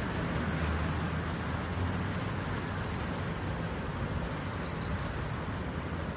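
Steady outdoor background noise with a low rumble. A little after four seconds in comes a quick run of about five short, high chirps.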